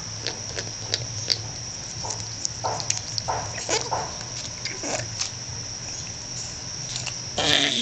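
Young gibnut (lowland paca) moving about in its wire cage: scattered light clicks and scratches, a few short soft scuffling sounds a few seconds in, and a louder scuffle near the end.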